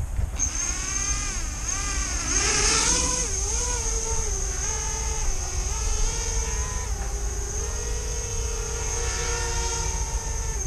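Diatone GT200S racing quadcopter's brushless motors and propellers hovering on its first spin-up, a buzzing whine whose pitch rises and falls with small throttle corrections.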